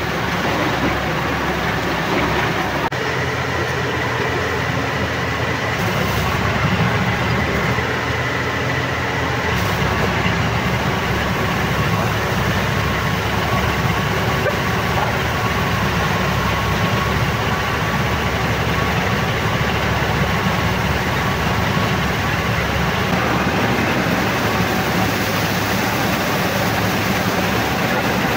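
Borewell drilling rig running: a loud, steady machine noise with a low rumble and a faint high whine, unchanging throughout.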